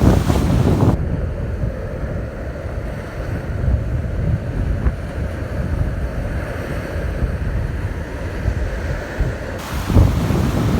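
Surf washing onto a beach, with wind buffeting the microphone; gusts are loudest at the start and again near the end.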